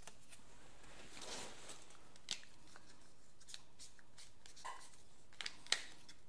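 Quiet room tone with a few faint, scattered rustles and small clicks of things being handled.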